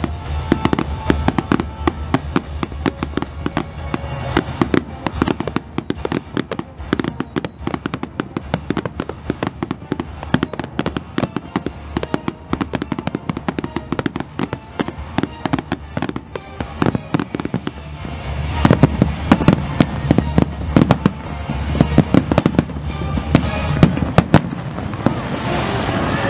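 Fireworks display firing: a rapid, dense string of bangs and crackles from bursting aerial shells and comets fired from the waterline. The bangs grow louder and more frequent during the last third.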